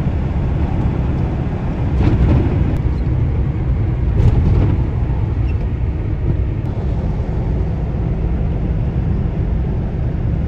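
Steady low rumble of engine and tyre noise inside the cab of a moving GAZelle Next van on a snowy road, swelling slightly a couple of times.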